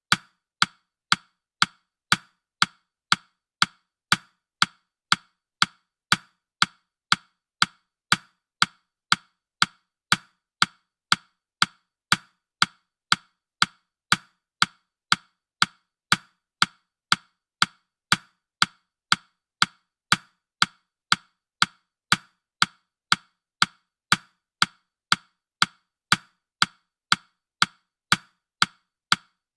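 Countdown timer's clock-tick sound effect: sharp, evenly spaced wooden-sounding ticks, about two a second, at a steady level.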